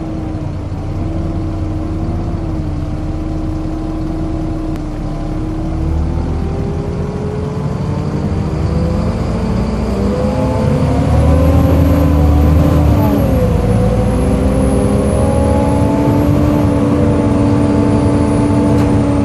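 Volvo B7LA bus engine running under way, its pitch climbing slowly over several seconds, dropping sharply about two-thirds of the way through, then holding steady. A faint high whine joins in about halfway.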